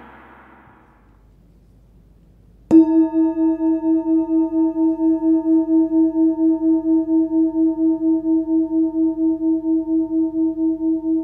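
A 14.3 cm forged 'Full Moon' singing bowl struck once with a mallet a little over two and a half seconds in, then ringing on with a steady tone near 320 Hz (between D# and E) and fainter higher overtones, its sound pulsing about four times a second.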